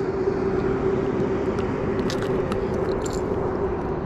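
Steady rushing background with a steady low hum. A few faint clicks come about two to three seconds in, as the treble hooks of a crankbait are worked loose from a bass's mouth by hand.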